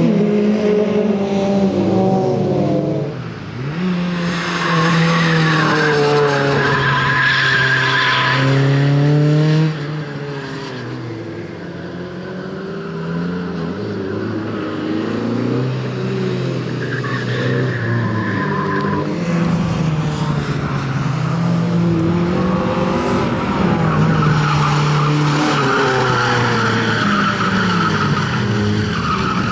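Renault Clio hatchback driven hard through tight turns, its engine revving up and falling back again and again as the driver works the throttle. Tyres squeal in the slides, most strongly about four to nine seconds in, again around seventeen seconds, and from about twenty-three to twenty-eight seconds.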